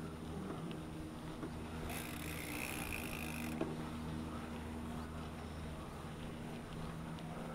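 Mountain bike rolling along a dirt path: steady tyre and drivetrain noise with a low hum, and a brief hiss lasting about a second and a half, about two seconds in.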